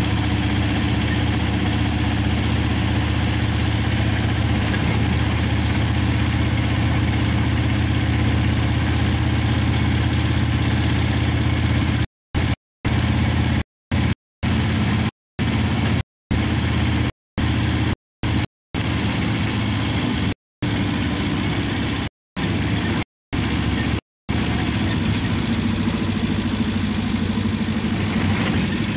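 Steady engine and road noise heard from inside a vehicle driving along an open road, a constant low drone. In the middle the sound cuts out completely for split seconds about a dozen times, as in a recording glitch.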